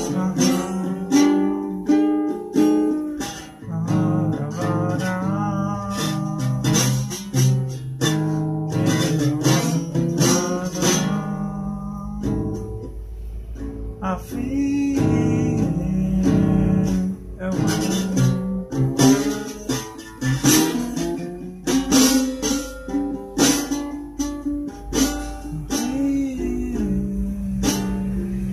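Guitar strummed in a steady rhythm, playing the chords of a song.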